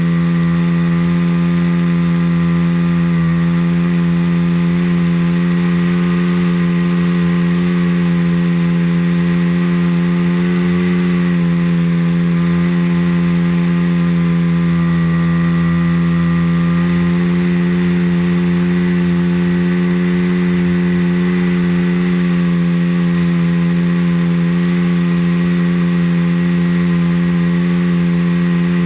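A .90 four-stroke nitro glow engine on a Sig Four Star 60 model airplane, running at a steady throttle in flight and heard from on board. It makes a loud, even drone whose pitch shifts only slightly.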